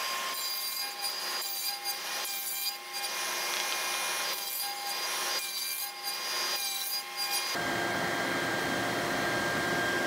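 Table saw cutting a rabbet in a length of 2x6 lumber. The blade's steady whine swells about once a second as it bites into the wood over and over. In the last couple of seconds the tone changes to a steadier hum.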